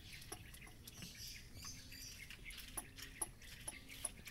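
Faint squirts and sputters of syrup from a plastic squeeze bottle onto ice in plastic cups, with scattered small clicks.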